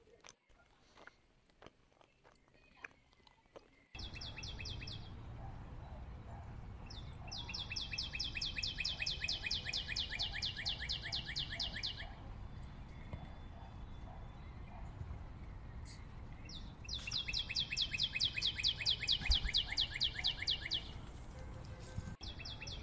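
Cicadas calling in long rapid pulsing trills, even and unchanging in pitch, two of about five seconds each with short bursts before and after, over a steady low rumble. Before that, faint soft clicks of macaques chewing coconut.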